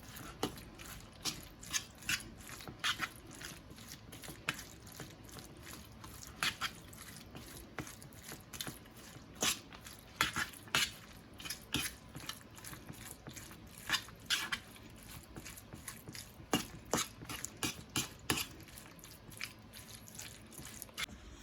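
A utensil clinking and scraping against a bowl in irregular taps, stirring a thick mix of mac and cheese, coleslaw and burger sauce.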